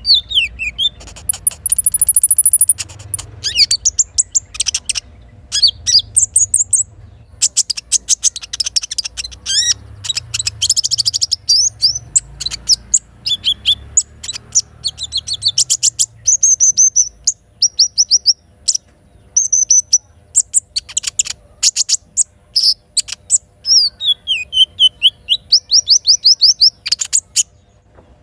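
Little spiderhunter (sogok ontong) singing: rapid strings of sharp high chirps, fast trills and falling whistled notes, many of them in quick succession.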